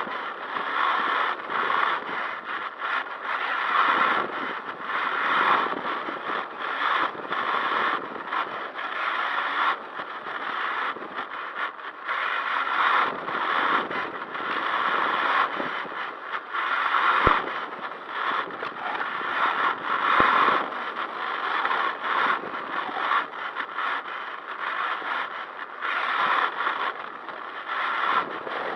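Onboard sound of an HPI WR8 Flux, a 1/8-scale brushless electric rally RC car, being driven: a rushing, rattling scrabble of tyres and chassis that rises and falls with the driving, with two sharp knocks about 17 and 20 seconds in.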